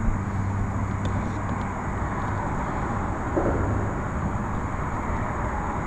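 Road traffic on the highway bridges overhead: a steady wash of tyre and engine noise, with a low hum that fades out about four seconds in.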